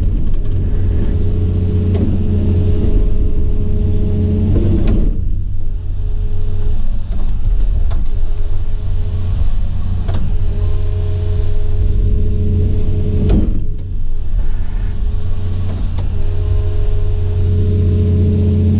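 Excavator's diesel engine and hydraulics running steadily while it strips topsoil, a constant low hum with a higher whine on top. A few sharp knocks come through about five, ten and thirteen seconds in.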